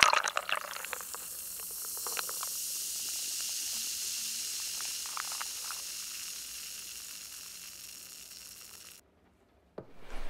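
Frothed milk poured from a milk frother jug into a mug of coffee, splashing for about the first second, then a steady high hiss that swells, slowly fades and cuts off shortly before the end.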